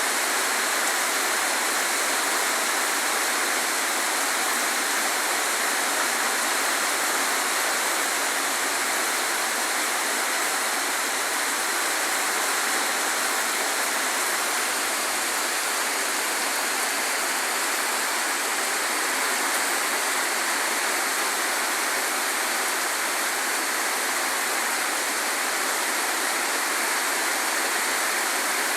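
Heavy rain falling steadily, an even unbroken hiss of water with no letup.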